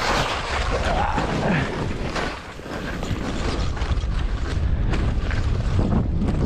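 Skis scraping and hissing over packed snow on a downhill run, with wind rumbling on the GoPro's microphone that grows stronger about halfway through.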